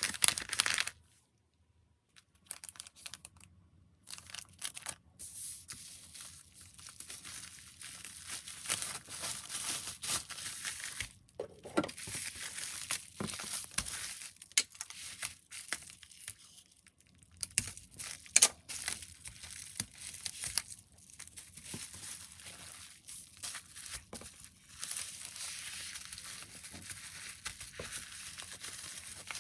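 Plastic packaging crinkling and tearing as goods are wrapped, in uneven rustling bursts after a short pause near the start, with one sharp snap about two-thirds of the way through.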